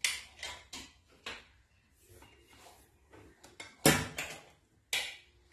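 Short plastic clicks and knocks as the dough maker's power plug is pushed into a wall socket and its cord handled, with two louder knocks near the end.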